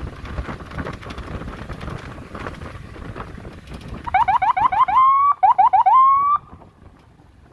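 Electronic siren-style horn sounding about four seconds in: quick runs of rising chirps, each ending in a held, slightly rising tone, given twice and cut off sharply. Before it, a rumble of vehicle noise with wind on the microphone.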